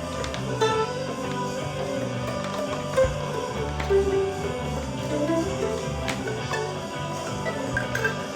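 Instrumental passage of a song: plucked-string instruments playing over low bass notes, with a few sharp percussive taps.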